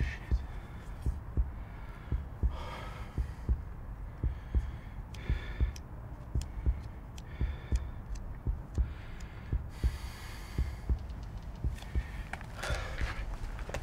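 Dull low thumps about twice a second, some in close pairs like a heartbeat, under a man's heavy breaths and sighs.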